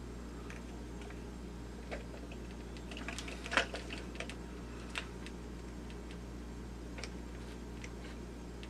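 Scattered light clicks and taps of small plastic parts being handled, with the sharpest click about three and a half seconds in, over a steady low hum.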